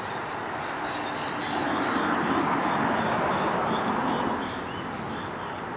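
Birds chirping in short high calls over a steady rushing noise that swells for a few seconds and then eases.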